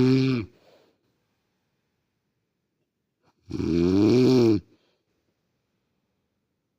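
A woman snoring in regular breaths: one snore trails off just at the start, then one full snore of about a second comes a little past halfway, pitched and buzzing, rising slightly in pitch and falling away. Near silence lies between the snores.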